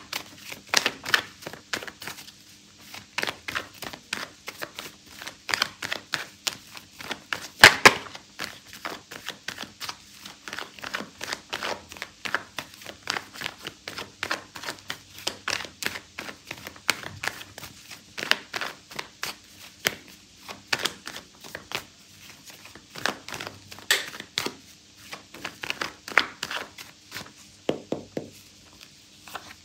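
Tarot cards being shuffled and handled: a long run of quick clicks and flicks of the cards, with one sharper knock about eight seconds in.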